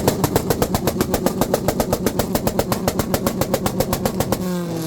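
Honda CRX engine held on its two-step launch-control rev limiter: a rapid, even string of exhaust pops and bangs, about nine a second. Near the end it is let off and the revs fall away.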